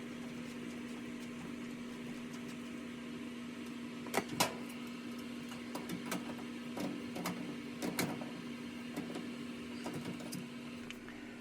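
Steady low hum with scattered light clicks and knocks of hands and tools handling metal fittings, the loudest a pair of knocks about four seconds in.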